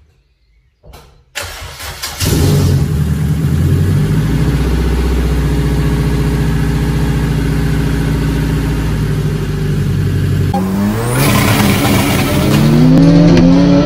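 Car engine starting and settling into a steady idle. About ten seconds in it cuts to an in-car recording where the engine note climbs and steps in pitch as the car accelerates.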